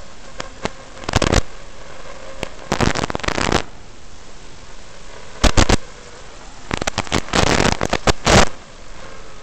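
Hiss from an analog FPV video receiver's audio channel, broken by several loud bursts of crackling static about a second, three seconds, five and a half seconds and seven to eight seconds in. The static is the radio link breaking up as the signal weakens.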